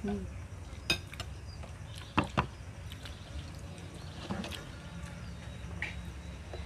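Metal spoons clinking and scraping on plates as people eat, a few separate sharp clinks with the loudest pair about two seconds in, over a steady low background hum.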